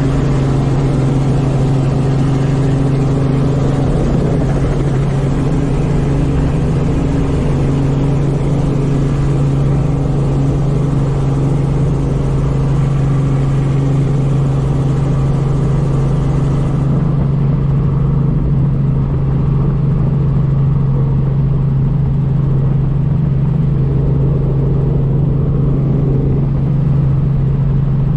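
Helicopter cabin noise heard from the cockpit: a loud, steady low drone of engine and rotor. The high hiss above it falls away about two-thirds of the way through.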